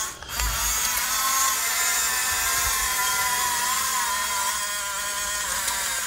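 Electric drive motors and gearing of an Amewi 22518 RC bulldozer whining as it runs its tracks up a sand pile, buzzing like a swarm of bees. After a brief drop right at the start, the whine runs steadily, its pitch wavering slightly with the load.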